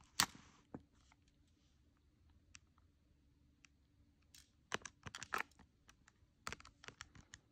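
Keys of a TI-84 Plus CE graphing calculator being pressed: scattered soft clicks, with quick runs of several presses about two-thirds of the way through and again near the end.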